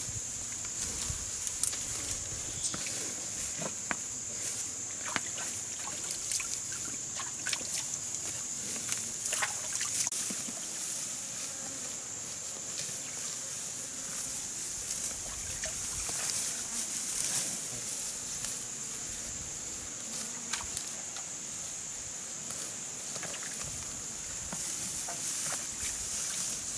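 A steady high-pitched insect drone, typical of cicadas, with scattered clicks and light knocks over it.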